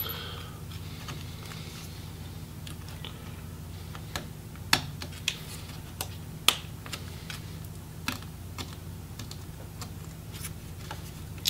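Scattered light clicks and taps of a small screwdriver and fingers working on an open laptop's internals, about a dozen spread irregularly, over a steady low hum.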